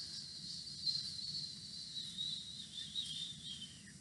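A woman's long, slow exhale through the mouth during a deep-breathing exercise: a soft, steady breathy hiss that fades out about three and a half seconds in.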